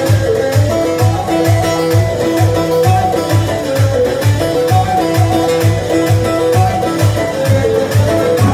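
Halay dance music played live on an electronic arranger keyboard: a melody over a steady drum beat of about two and a half beats a second.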